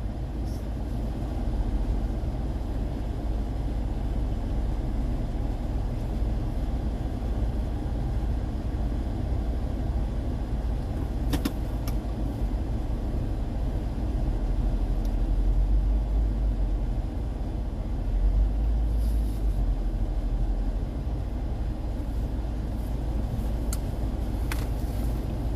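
Steady low rumble of a car driving, engine and road noise heard from inside the cabin, swelling slightly a little past halfway, with a couple of brief clicks.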